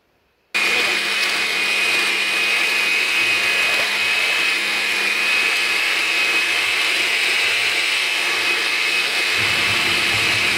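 Countertop blender with a glass jar switching on abruptly about half a second in and then running steadily, grinding toasted dried chiles with cold water into a thick purée, with a steady high whine over the motor.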